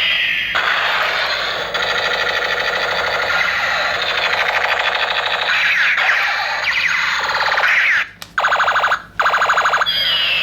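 Electronic sound effects from a battery-powered toy gun: a falling laser-like tone, then long stretches of fast, even electronic rattling with sweeping tones, broken by short pulsed bursts near the end.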